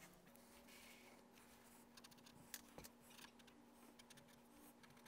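Near silence, with faint scratching and light clicks of a pen writing on notebook paper over a faint steady room hum.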